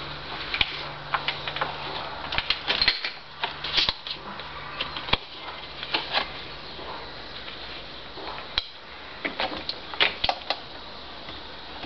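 Irregular clicks, taps and light plastic knocks from hands handling a plastic fuel bottle, its fuel line and the bench-mounted model glow engine, which is not running.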